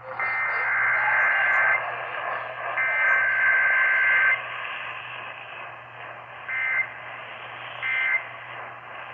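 EAS digital header tones received on AM radio: two long bursts of buzzing, warbling data, then three short bursts about a second and a half apart. The short bursts are the end-of-message code. Radio hiss and a low hum run underneath.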